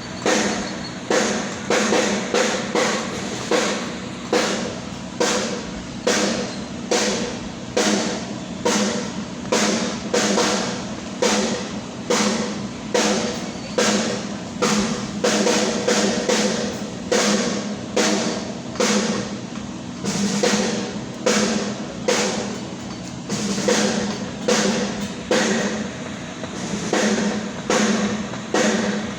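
A drum struck over and over at an even pace, about two hits a second, over a steady low hum: a drummer checking a drum during a concert sound check, heard through the PA.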